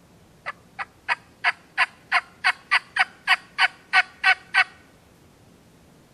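Wild turkey calling: a series of about fourteen short, sharp yelp-like notes, roughly three a second, growing louder and then stopping abruptly.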